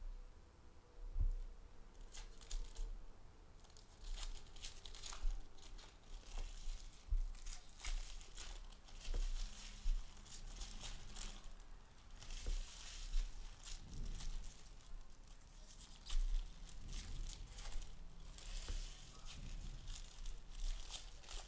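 Trading card pack wrappers being torn open and crinkled, in a run of short rustles and tears.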